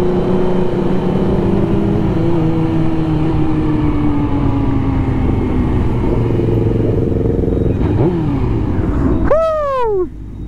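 Motorcycle engine running steadily under way, its pitch sagging slowly as the bike eases off. Near the end a quick throttle blip sends the pitch sharply up and back down, and the engine then drops quieter.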